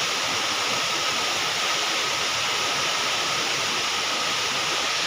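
Steady rush of water, an even hiss that starts abruptly at the edit and holds level throughout.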